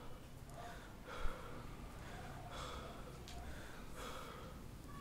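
A young man breathing heavily and unevenly, with short audible breaths in and out every half-second or so. One brief low thump sounds about a second in.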